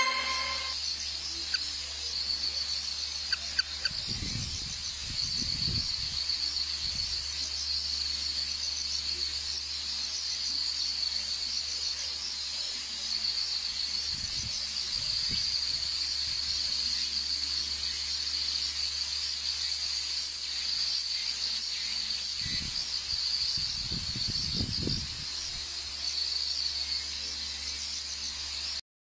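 Insects chirring in a steady, high, pulsing drone, with a few brief low rumbles about four seconds in and again near the end.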